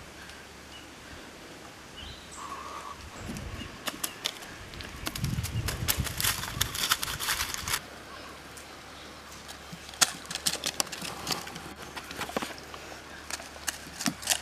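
Rustling, crackling and scraping of a body and hands moving over rocks and dry leaf litter, in a dense burst from about four to eight seconds in and again in scattered crackles near the end.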